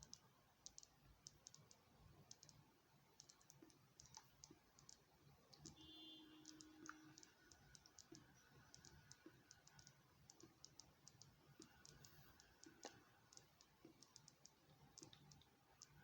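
Near silence with faint, irregular clicks, several a second.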